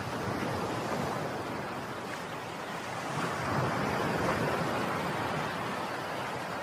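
Sea surf washing onto a beach, a steady rushing wash that swells about three to four seconds in and then eases off.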